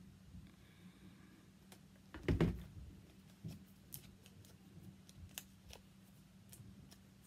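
A cordless glue gun set down on the tabletop with a thud about two seconds in, followed by scattered light clicks and rustles of cardstock cutouts being handled, over a faint steady low hum.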